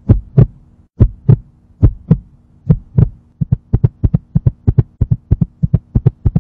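Human heartbeat heard through a stethoscope: a normal heart's lub-dub pairs at a little over one beat a second, then from about three and a half seconds in the abnormally fast beat of tachycardia, about three beats a second.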